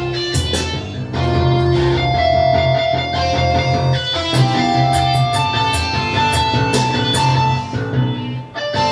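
Electronic music from the Eyemusic interactive light-and-sound system: a guitar-like instrument voice plays held notes that step between pitches as hands move up and down over the sensor tubes, over a low steady bass and a light beat.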